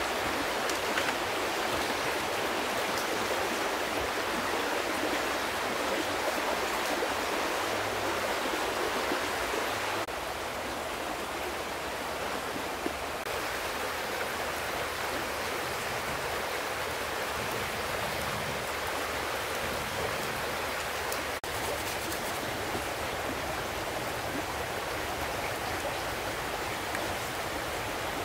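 Steady rushing of a fast-flowing river, dropping slightly in level about ten seconds in.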